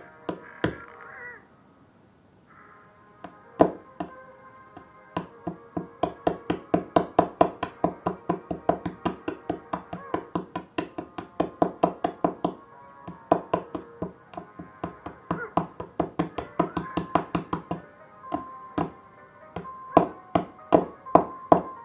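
Knife repeatedly striking a hard, sticky sour candy, sharp knocks coming about two or three a second in runs, as the candy fails to break. Background music plays underneath.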